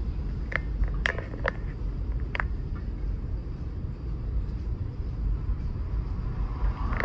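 Outdoor city street ambience: a steady low rumble, with a few short sharp clicks in the first two and a half seconds.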